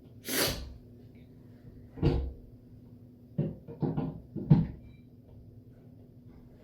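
Handling noises at a study desk: a short swish, a thud about two seconds in, then a quick run of four or five knocks. A faint steady hum of room ventilation lies underneath.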